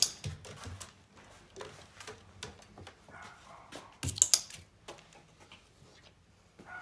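Irregular light taps and clicks of a hen pecking at a plastic treat cup and a target disc on a cloth-covered table. A louder double click comes about four seconds in.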